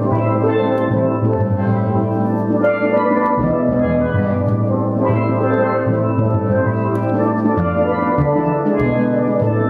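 Steel orchestra playing a tune: a mass of ringing steelpan notes carrying the melody and chords over a low bass line that steps to a new note every second or two.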